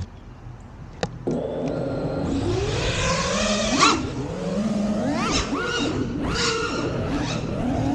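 FPV racing quadcopter's brushless motors spooling up about a second in, then whining in sweeps, the pitch climbing and dropping with each punch and chop of the throttle.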